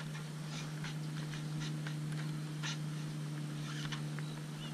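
A spinning rod and reel being handled and cranked, giving scattered light clicks and ticks over a steady low hum.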